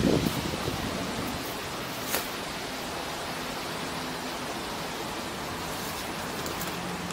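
Steady outdoor background hiss, with a brief low rumble fading out at the start and a faint click about two seconds in.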